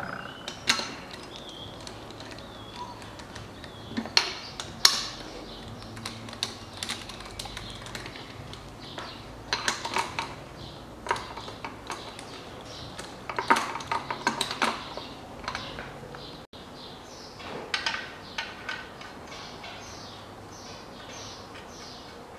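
A socket ratchet clicking in several short bursts as bolts on an engine's upper oil pan section are run in and tightened.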